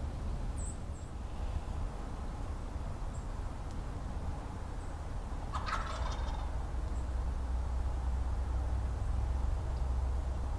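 A wild turkey tom gobbling once, a short rattling call about halfway through, over a low steady rumble.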